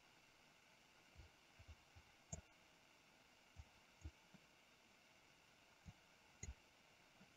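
Near silence broken by about ten faint, scattered computer mouse clicks, some heard as soft low thumps.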